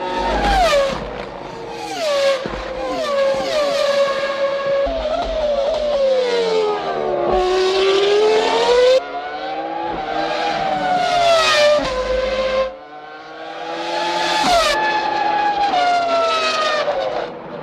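1999 Formula One cars' V10 engines running at high revs, passing with falling pitch and changing gear. The sound jumps abruptly every few seconds from one car or shot to the next.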